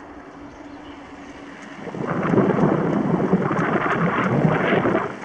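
Wind buffeting the camera microphone on a moving bicycle: a low steady rush at first, then loud, gusty rumbling from about two seconds in.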